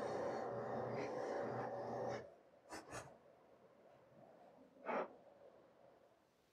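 Benchtop drill press running as a twist bit bores through a wooden disc, a steady motor hum that stops abruptly about two seconds in. Then come two light clicks and, about five seconds in, a single wooden knock as the clamp is worked and the drilled disc is lifted off the table.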